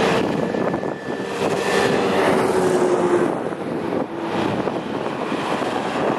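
Mercedes-Benz Unimog trucks driving past one after another: engine and tyre noise, with a droning tone that slowly drops in pitch as one goes by.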